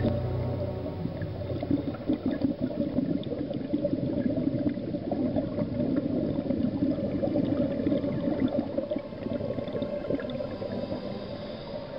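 Underwater bubbling and gurgling of a scuba diver's exhaled air venting from the regulator, swelling and easing in uneven surges.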